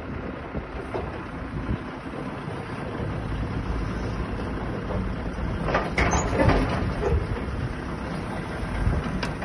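Tractor engine running steadily, driving a feed mixer whose hydraulic loading bucket is lifting a load of straw up to the mixing tub. A burst of clatter comes about six seconds in, and another sharp knock comes near the end.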